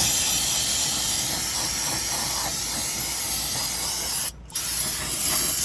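Aerosol cleaner can spraying in a steady hiss, stopping briefly about four seconds in and then spraying again, as oil residue around the newly fitted oil filter is cleaned off.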